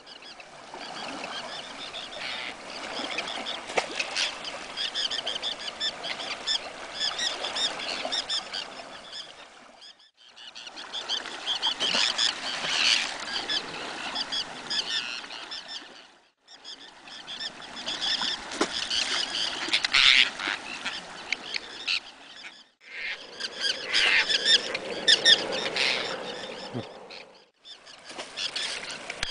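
A flock of Arctic terns calling constantly: many overlapping short, high-pitched cries. The sound drops out briefly four times.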